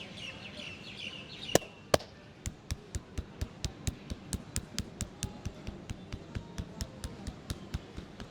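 Birds chirping, then two loud sharp snaps about a second and a half in, followed by an even run of quick hand slaps, about four a second: rhythmic percussive tapping of a head massage.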